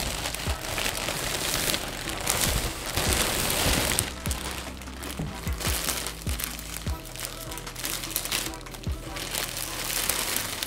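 Clear plastic clothing bag crinkling and rustling as a garment packed in it is handled and unwrapped, with many small crackles.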